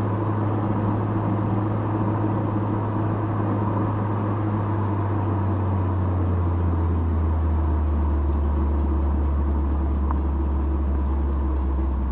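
Porsche Macan GTS's 2.9-litre twin-turbo V6 running steadily at a cruise, a low drone whose pitch drops a little about six to seven seconds in as the revs ease.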